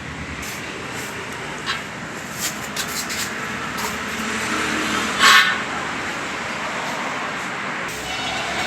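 Steady road traffic noise of vehicles on a roadside, with scattered light clicks and one short louder burst about five seconds in.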